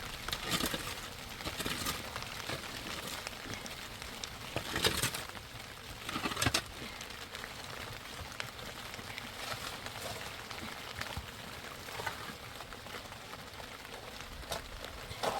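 Steady rain falling, an even hiss, with a few sharp knocks now and then.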